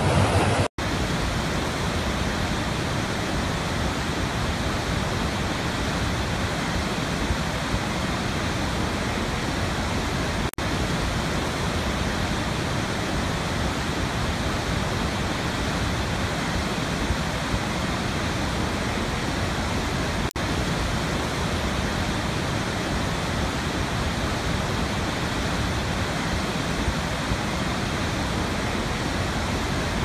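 Steady, even rushing noise of a large waterfall's falling water. It cuts out for an instant three times, about every ten seconds, at the joins of a looped recording.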